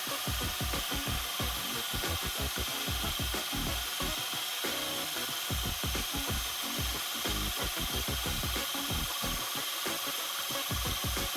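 Unimat mini lathe running with a steady motor whine while its tool turns down a small belt-sander pulley, the cut giving an uneven scraping chatter throughout.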